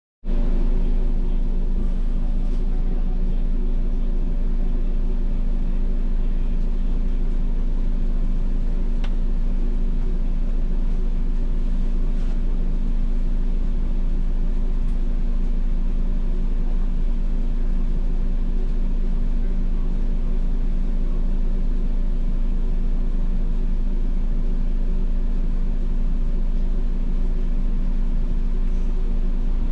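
Diesel engine of a MAN NL283 Lion's City city bus idling steadily while the bus stands still, a low even hum heard from the driver's cab.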